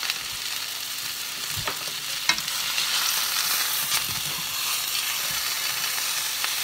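Chicken frying in vegetable oil in a pan, a steady sizzle with a few sharp clicks.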